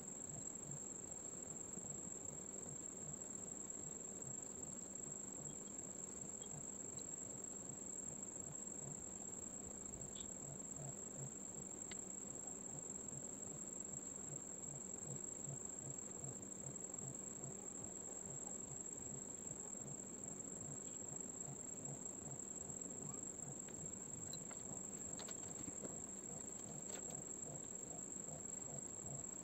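Faint steady background sound: a single unbroken high-pitched tone or trill over a low hum.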